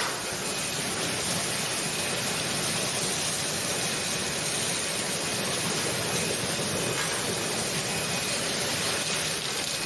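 Commercial fruit and vegetable washing machine running: a steady rush of churning water and hiss with a mechanical drone under it.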